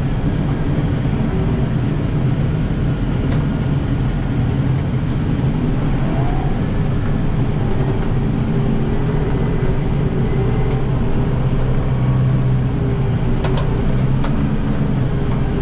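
Kubota M7060 tractor's four-cylinder diesel engine running steadily, heard from inside the closed cab as an even low drone, with a few faint clicks near the end.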